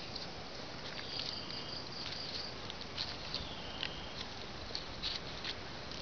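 Outdoor forest ambience: repeated short, high chirps and brief held calls from wild creatures over a steady hiss, with scattered sharp clicks and crackles such as dry leaves and twigs underfoot.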